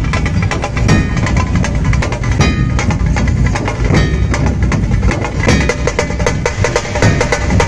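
Loud procession music: rapid, regular drum strokes with a melodic line running over them.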